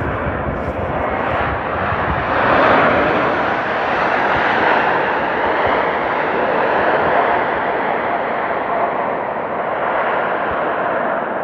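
The CFM LEAP-1A jet engines of an Airbus A321neo airliner arriving to land, heard as a loud, steady jet rush. It swells slightly a few seconds in.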